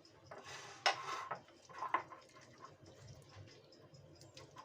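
Wet, sticky handling sounds as a melted-butter, ketchup, harissa and honey glaze is spread over a steamed whole chicken, with a few short squelches in the first two seconds, the loudest about a second in, then soft rubbing.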